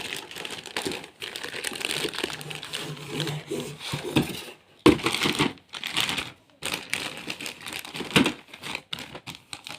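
Ceiling-fan packaging being unwrapped by hand: irregular crinkling and rustling, with a few sharper crackles.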